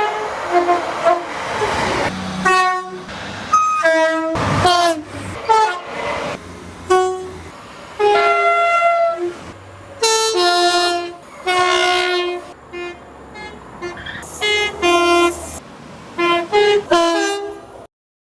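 Horns of passing British passenger trains in a rapid series of short toots, alternating between a higher and a lower note, over the rumble of the trains. The horn blasts stop abruptly near the end.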